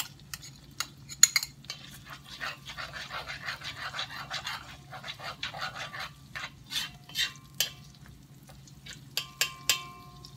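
Garlic and chopped tomato sizzling in oil in a cast iron wok while a metal spoon stirs and scrapes them, with sharp knocks of the spoon against the wok and bowl; a few of the later knocks ring briefly.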